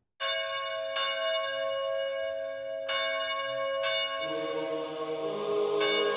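Music opening with a bell struck five times, each strike ringing on over the last; lower held tones come in about four seconds in.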